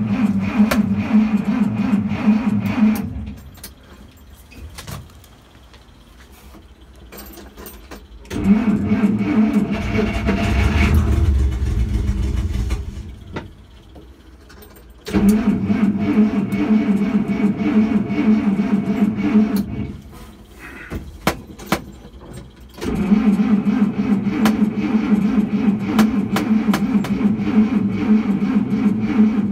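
Dodge D300 truck's engine being cranked over on the starter in repeated attempts of about five seconds each, with short pauses between them. The engine does not start after sitting for decades.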